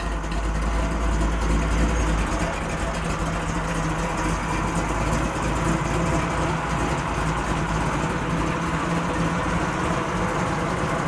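Chevrolet SS's engine running as the car pulls in, with a heavy low rumble for the first two seconds that then settles to a steady, lower-pitched run.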